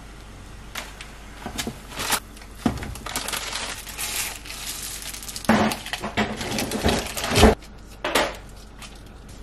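Crinkling and rustling of Chapagetti seasoning sachets being handled and emptied, with a few sharp clicks and knocks. The crinkling is loudest and densest just past the middle, with one last burst near the end.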